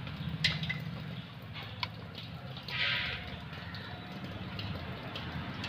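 Faint small metal clicks and a brief scrape as the small washer is worked off the handbrake lever pin of a rusty drum-brake shoe, over a steady low hum.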